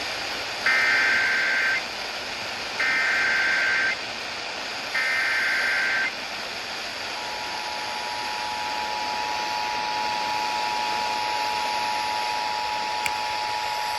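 Emergency Alert System header: three one-second bursts of the warbling SAME data code, then the steady two-tone EAS attention signal from about seven seconds in, over a background hiss of static. The tones mark the start of a new alert, here a severe thunderstorm warning.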